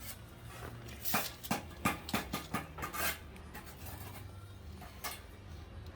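Bricklaying trowel work: a quick run of sharp taps and scrapes of steel on brick and mortar, then one more tap near the end, over a steady low hum of site machinery.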